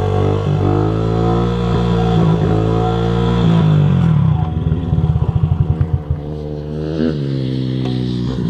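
Honda CRF50's small single-cylinder four-stroke engine revving up and down as the bike is ridden, with a rapid stuttering pulse for about a second and a half near the middle.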